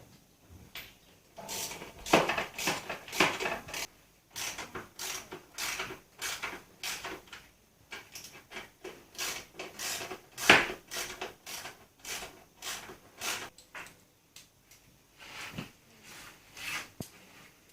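Socket ratchet worked back and forth tightening bodywork bolts, each swing giving a short rasping run of clicks, with brief pauses between runs.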